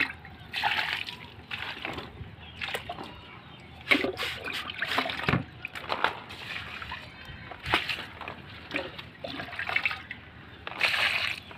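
Water splashing onto garden plants and soil during watering, in irregular bursts.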